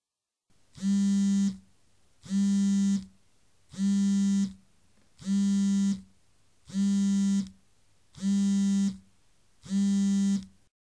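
Synthesized electronic buzzer sound effect: a low, harsh buzz sounded seven times, each about three quarters of a second long and spaced evenly about a second and a half apart, each dropping in pitch as it cuts off.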